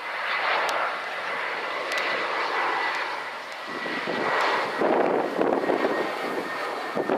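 Jetstar Airbus A320's twin IAE V2500 turbofans on final approach: a steady rushing jet noise with a thin high whine running through it. It grows louder and rougher about five seconds in.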